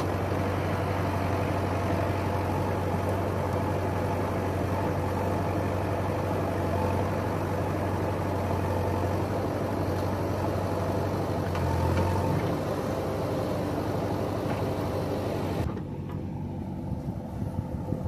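Diesel engines of a JCB 3DX backhoe loader and a tractor running steadily, with a strong low hum while the backhoe loads soil into the tractor's trolley. The sound drops and goes duller about sixteen seconds in.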